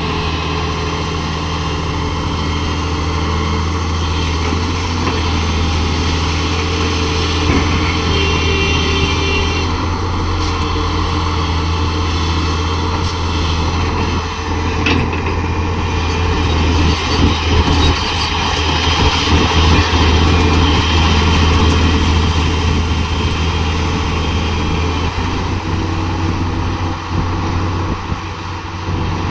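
Heavy diesel engines of an excavator and a Tata dump truck running steadily with a deep, even hum. The engine load swells and eases as the excavator works, loudest a little past the middle.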